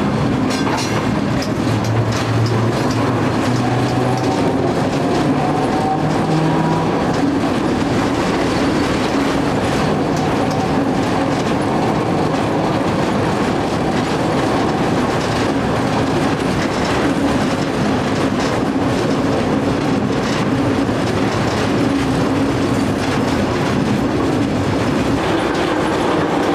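Hong Kong double-deck electric tram running along the street, heard from on board: the steady rolling noise of its steel wheels on the rails, with a faint hum.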